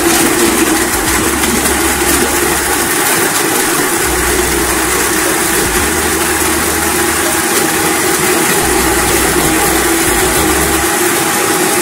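Electric blender motor switched on and running steadily, blending bananas, dates, almonds and walnuts in milk. The sound is a loud, even rush with one steady tone through it.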